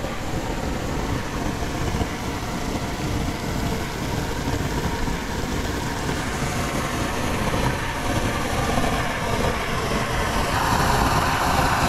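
Hot spring geyser jetting water, a steady loud rushing spray that grows a little louder near the end.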